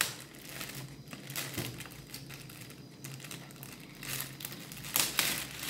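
Clear plastic bag crinkling and rustling as a boxed camera is worked out of it by hand, with louder crinkles about four and five seconds in.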